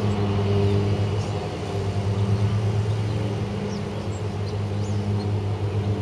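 A steady low mechanical hum made of several fixed pitches, with wind buffeting the microphone and a few faint high bird chirps.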